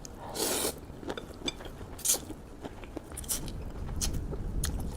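Close-up eating sounds of spicy noodles with chillies: a couple of short noisy slurps or bites and crunchy, clicky chewing, over a low rumble that builds in the second half.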